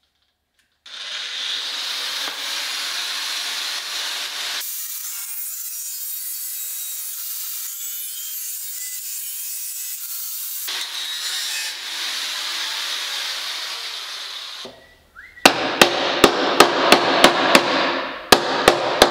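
Angle grinder with a thin cut-off disc cutting through the sheet-steel fender, a steady high grinding noise that starts about a second in. For about six seconds in the middle its deeper part drops away and it sounds thinner. Near the end it gives way to a run of sharp, loud clicks, about three a second, over a low hum.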